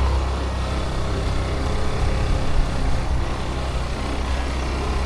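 Hero Destini 125 scooter's single-cylinder engine running steadily while riding off, with wind rushing over the microphone.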